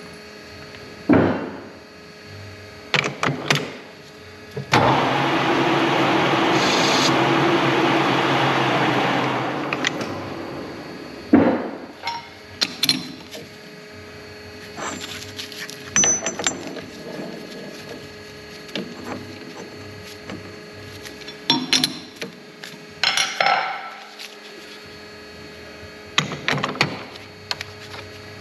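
Machine-shop work on steel plates: metal parts and tools clinking and knocking at irregular intervals. About five seconds in, a steady noisy whirr starts, runs for about five seconds and fades away.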